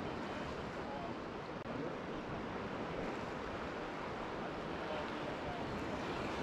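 Ocean surf washing steadily against coastal rocks, mixed with wind.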